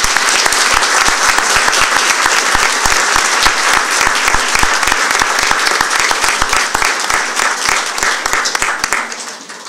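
Audience applauding, a dense patter of many hands clapping that starts at once and dies away near the end.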